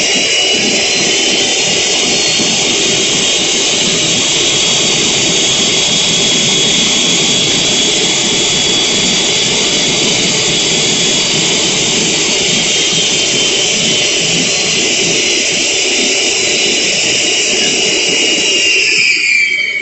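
Homemade turbojet engine built from an HC5A turbocharger running steadily: a loud rush of combustion and exhaust over a steady high turbine whine. Near the end the low rush drops away and the whine begins to fall as the engine starts to spool down.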